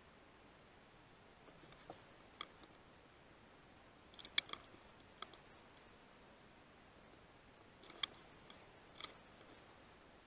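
Faint steady hiss broken by a handful of short, sharp clicks: a pair early on, a cluster a little past four seconds in, one about five seconds in, and two more near eight and nine seconds in.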